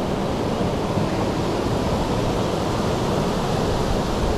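Steady rush of flowing river water, an even noise with no letup.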